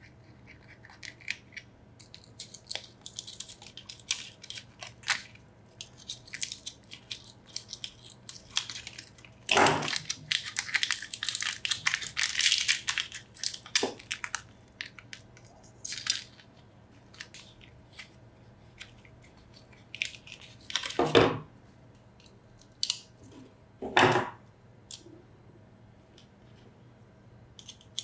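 Hand work on small metal tool parts: scattered clicks and scrapes, a stretch of rapid scraping about ten to fourteen seconds in, and a few sharp knocks, the loudest about twenty-one and twenty-four seconds in.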